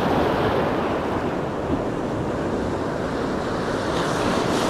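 Steady wash of Pacific surf breaking on the beach, with wind noise on the microphone.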